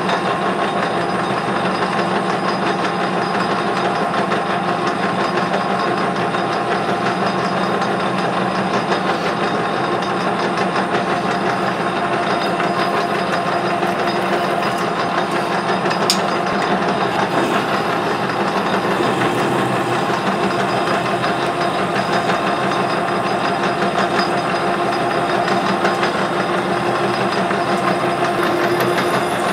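Clausing 6903 metal lathe running at a steady speed with a steady hum, while a tailstock center drill and then a twist drill bore into the end of a rod spinning in the chuck. One sharp tick just past halfway.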